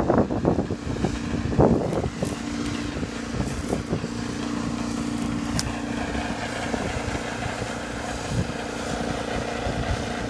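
Portable engine-driven water pump running at a steady hum, pumping water out of a pond through a hose. Wind buffets the microphone in the first two seconds.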